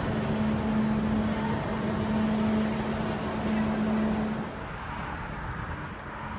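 Railway station hall ambience: a steady low hum over a general din, which stops about four and a half seconds in, giving way to quieter open-air noise over the tracks.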